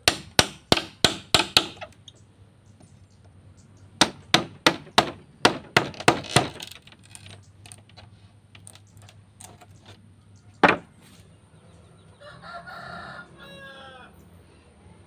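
Sharp chopping strikes of a blade into bamboo, about three a second, in two runs with a single strike after. Near the end a rooster crows once, lasting about two seconds.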